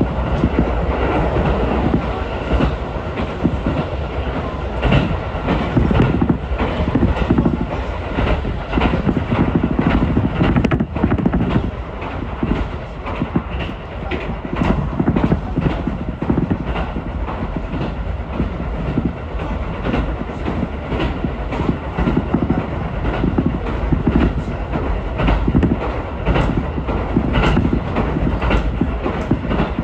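Ichibata Electric Railway electric train running at speed, heard aboard the car: a steady rumble of wheels on rail, with frequent clicks as the wheels pass over rail joints.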